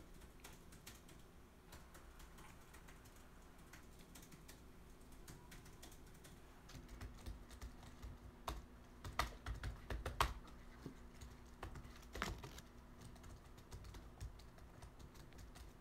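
Typing on a laptop keyboard: scattered key clicks that get busier and louder in the middle, with a few harder taps.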